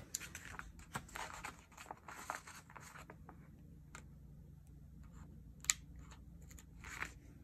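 Paper sticker sheets rustling and crinkling as they are leafed through for about three seconds, followed by a few light taps and clicks, the sharpest a little past halfway.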